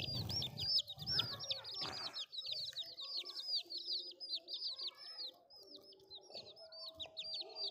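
Several baby chicks peeping rapidly and without a break: a dense stream of high, falling cheeps, several a second.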